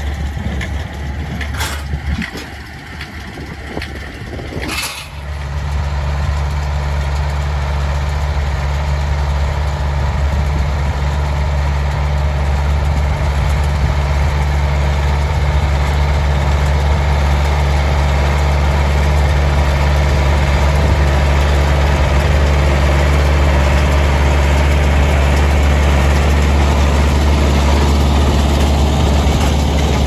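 International 885XL tractor's diesel engine running steadily as it pulls a small square baler through the hay. It is quieter for the first few seconds, then louder and steady from about five seconds in.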